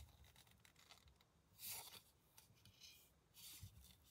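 Near silence, with two faint soft brushing sounds, about a second and a half in and again near the end, from cotton-gloved fingers handling a diecast model car on its plastic base.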